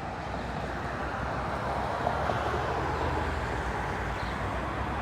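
Road traffic noise: a steady rumble of a passing vehicle that slowly grows louder.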